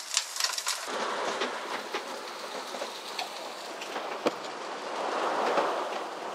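Water rushing and sloshing along the hull of a sailboat under way in a building sea, swelling about five seconds in, with a single sharp knock a little after four seconds. A frying pan's sizzle is heard in the first second.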